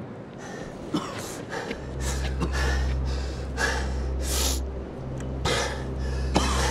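A man panting heavily, out of breath after a fight, in quick loud gasps about twice a second. A low steady hum joins about two seconds in.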